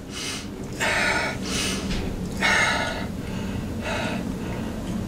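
A man breathing audibly between sentences: about five soft breaths in and out, with a faint steady low hum underneath.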